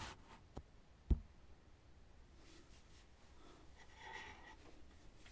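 A laptop being handled: a light click, then a sharper knock about a second in, followed by faint rustling.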